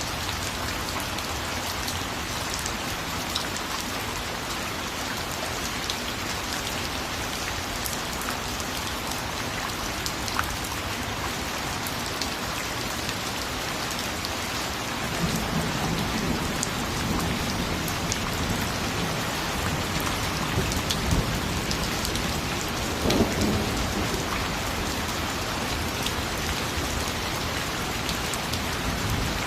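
Steady rain falling on a surface, with individual drops ticking through the hiss. About halfway in, a low rumble of thunder builds and swells about two-thirds of the way in.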